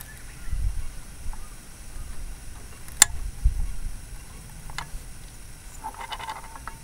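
Honda Dio AF34 scooter's 50 cc two-stroke engine with a failed crankshaft bearing, running low with a dull rumble and a couple of sharp clicks. Its rattling bearing noise picks up again near the end.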